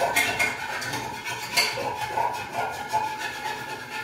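Pan being scrubbed at a sink: irregular metal scraping and clinking, with a sharper scrape about a second and a half in, and water running from the tap.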